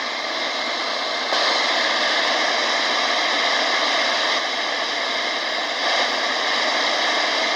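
Shortwave radio receiver playing steady static hiss through its speaker, with no station coming through. The hiss steps up in loudness about a second in and changes slightly a couple of times more.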